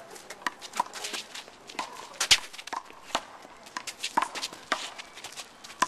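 Small rubber handball smacking sharply and irregularly off hands, the concrete wall and the court during a one-wall handball rally, mixed with sneakers scuffing on the court; the loudest smack comes a little over two seconds in.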